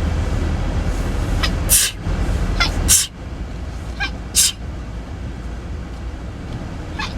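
A woman sneezing three times in quick succession, about every second and a half, each sneeze a brief voiced intake followed by a sharp hissing 'choo', with a fourth starting near the end: a hay fever sneezing fit. A steady low rumble runs underneath.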